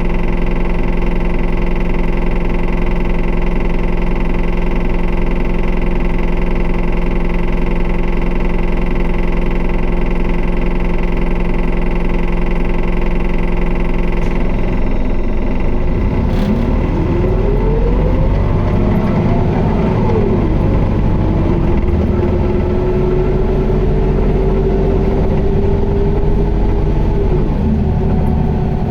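Toei city bus's Isuzu Erga four-cylinder diesel heard from inside the cabin, idling steadily, then pulling away about halfway through. The engine note climbs, drops sharply at a gear change, climbs again, and holds before easing off near the end.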